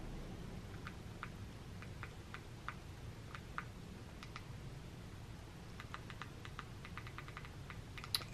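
Faint, irregular clicks of remote-control buttons being pressed to navigate a streaming-stick menu, coming quicker near the end.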